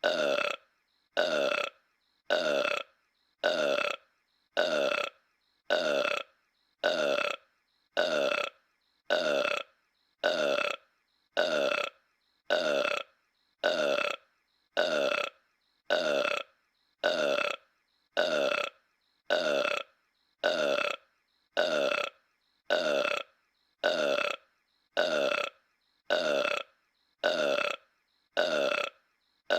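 Homer Simpson's cartoon burp as King Homer, the same single burp looped over and over: about one burp a second, each alike, with a short silent gap between.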